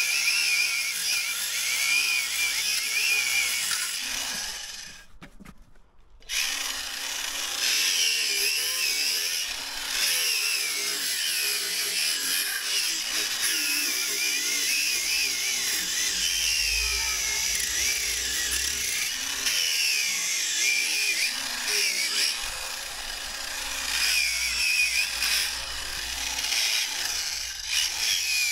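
Parkside angle grinder running on a cheap replacement motor, cutting through a car tyre. Its high whine wavers up and down in pitch as the load on the disc changes, over a steady grinding noise. The sound fades and drops out briefly about five seconds in, then the cutting resumes.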